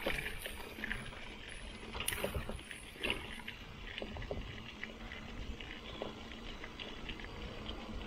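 Mountain bike (a 2019 Marin Bobcat Trail 5) rolling over a damp dirt singletrack: steady tyre noise on the soil with a low rumble and scattered small clicks and rattles from the bike over bumps.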